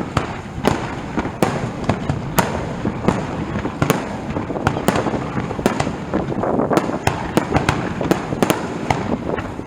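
Aerial fireworks bursting in quick, irregular succession: many sharp bangs, a few each second, over a dense crackling din.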